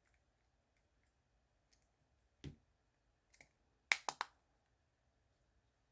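A few small plastic clicks from handling an Acura RDX key fob just snapped shut after a battery change: a single click, then a faint one, then three quick clicks about four seconds in.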